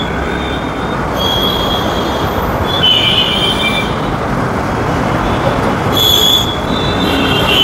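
Bajaj Pulsar NS160 motorcycle riding slowly in dense city traffic: steady engine and road noise, with several high-pitched squeals that come and go.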